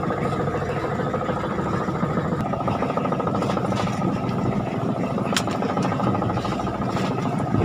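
Fishing boat's engine running steadily with a dense low pulsing throb. There is a single sharp click about five and a half seconds in.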